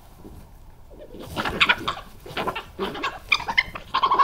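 European badgers fighting: harsh, squealing cries in quick repeated bursts, starting about a second in, as one badger is attacked and bitten.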